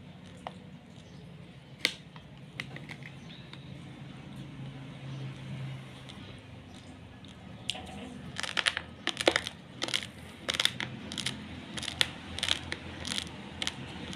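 Raw basmati rice grains crunching as they are chewed: a run of sharp, crisp cracks, two or three a second, starting about halfway through, over a low steady hum. Before that there are only a few faint clicks.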